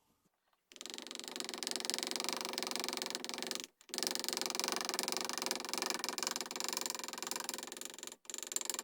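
A hand-held power tool grinding wood while shaping a gunstock's cheek rest. It starts about a second in and runs steadily in long passes, with two brief stops: one about a third of the way through and one near the end.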